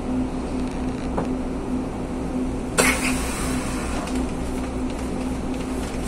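City bus idling, heard from inside the cabin: a steady engine hum with a steady whine. About three seconds in there is one short, sharp hiss of compressed air from the bus's pneumatic system.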